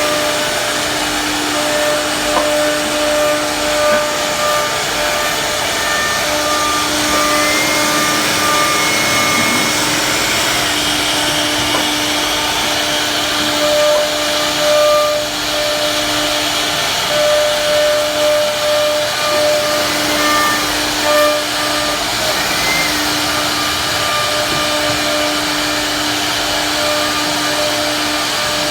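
CNC wood router running, its spindle giving a loud, steady rush of noise as it cuts the wood. A low motor hum switches on and off every few seconds as the machine moves, with a few short rising whines.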